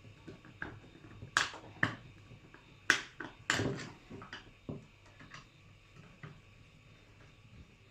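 Irregular small clicks and knocks of a cordless drill's plastic housing being handled as its last two screws are put back in, a few sharper taps in the first half and sparser ticks later.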